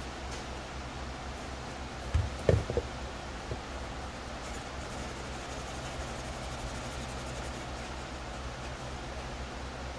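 Plastic helmet shell set down onto a plastic-sheeted table: a quick cluster of knocks about two and a half seconds in, then one small knock, over a steady low hum.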